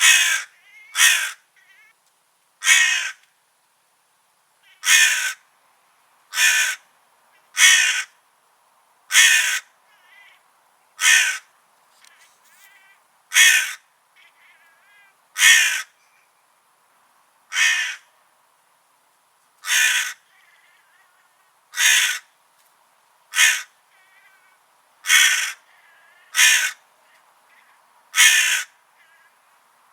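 Crows cawing: about seventeen loud, harsh caws, each about half a second long and one to two seconds apart, with fainter caws in between. A faint steady high-pitched tone runs underneath.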